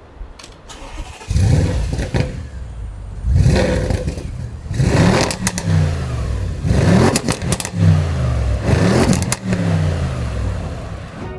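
Audi C7 RS6's twin-turbo V8 through its standard factory exhaust, before the Milltek system is fitted. It comes in loudly about a second in, then is revved in about five quick blips, the pitch falling back after each.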